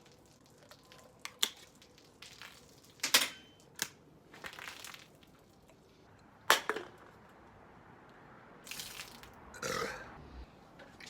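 Shotgunning beer: sharp metallic cracks and pops as aluminium beer cans are stabbed and opened, two of them loud, then the cans being crushed. A burp comes near the end.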